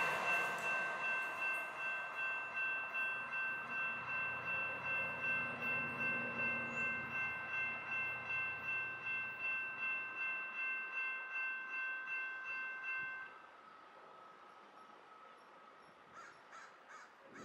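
Railroad crossing bell ringing in a quick, even rhythm as the crossing gates rise after a light-rail train has passed, with the train's low rumble fading away under it. The bell cuts off about thirteen seconds in, leaving only faint background noise.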